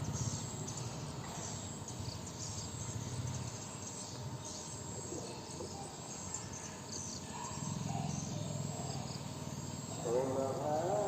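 Rapid high-pitched chirping, typical of swiftlets at a swiftlet house, over a low background rumble. About ten seconds in, a long wavering chanted voice starts, the opening of a distant call to prayer.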